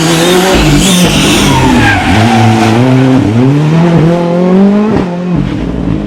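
Rally car engine revving hard at close range, its pitch climbing and then dropping sharply several times as it shifts and lifts off, with a rushing hiss from the tyres in the first second or so.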